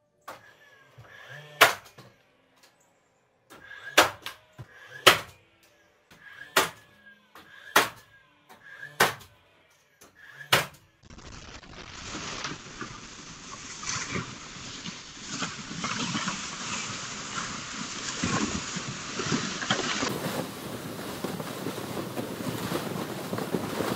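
Cordless DeWalt finish nailer firing seven times, each shot a sharp crack about a second apart. Then, about eleven seconds in, a steady rough scraping and crunching takes over: a sled being towed over snow.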